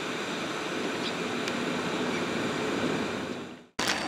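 NSB Class 73 electric train moving through the station, a steady rumble of wheels and running gear with a faint hum. It fades out near the end and an abrupt cut brings in a sharp burst of new sound.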